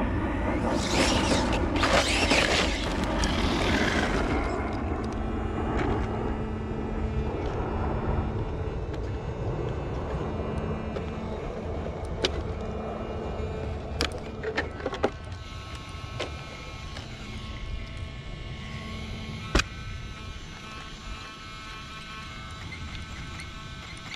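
A 6S-powered ARRMA Siren 1/10-scale electric 4WD RC truck running on gravel: motor whine with tyre and gravel noise, loudest in the first few seconds, then fading. A few sharp knocks come near the middle and again later.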